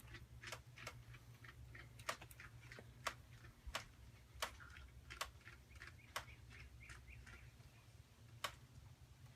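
Faint, sharp metallic clicks at irregular intervals over a low steady hum, as a .308 suppressor is handled and threaded onto a bolt-action rifle's muzzle.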